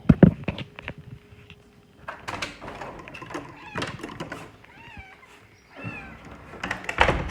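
Domestic cats meowing a few short times at feeding time, among knocks and clattering of food dishes, with a loud knock just at the start and a loud clatter near the end.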